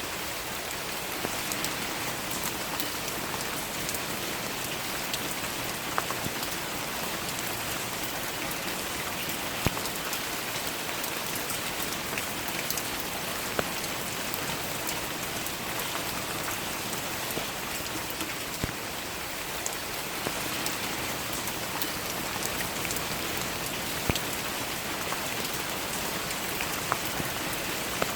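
Steady rain falling, an even hiss of many drops, with a few louder single drop impacts standing out now and then.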